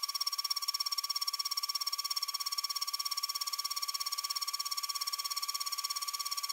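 CNC milling spindle with a single-flute endmill cutting 5083 aluminium plate on a trochoidal toolpath: a steady high-pitched whine that pulses rapidly and evenly as the cutter loops in and out of the material.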